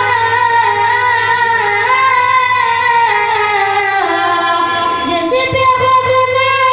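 A boy singing a naat into a microphone, amplified, in long drawn-out wavering notes. The melody steps down about four seconds in and rises again just after five. A steady low hum runs underneath.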